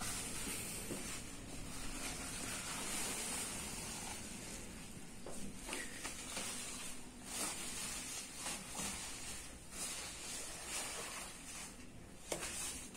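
Plastic bag and bubble wrap rustling and crinkling as a package is unwrapped by hand, with a few sharper crackles.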